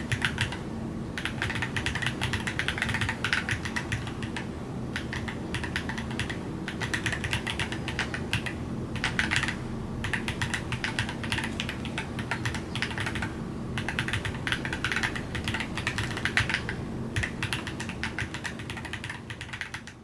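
Fast typing on a mechanical keyboard with Wuque Studio WS Flux switches, a polycarbonate plate and PBT Cherry-profile keycaps: a dense run of clacky keystrokes broken by a few short pauses.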